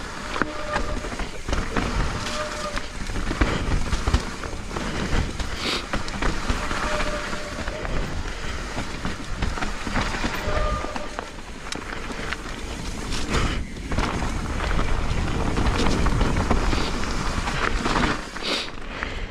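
Mountain bike ridden fast down a wet, rough trail: tyres churning through mud and over roots, with the bike rattling on the bumps. Short squeals, likely from the disc brakes, come a few times.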